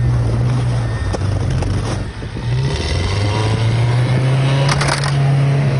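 Car engine revving hard and held under load while the stuck car is pushed out. The engine note dips briefly about two seconds in, then holds steady again. There is a short rush of scraping noise near the end.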